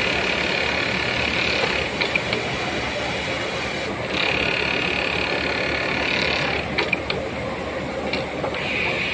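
Industrial J-stitch sewing machine running through its sewing cycles: three stretches of fast, high-pitched stitching, each about two to two and a half seconds long, separated by sharp clicks of the mechanism, over a steady motor hum.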